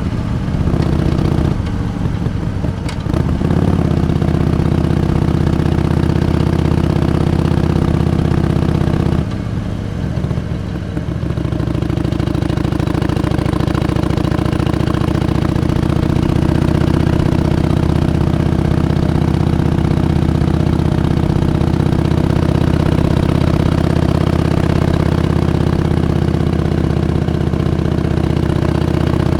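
Harley-Davidson Iron 883's air-cooled V-twin engine running at a steady pitch. The sound drops briefly near the start and again about nine to eleven seconds in, then holds steady.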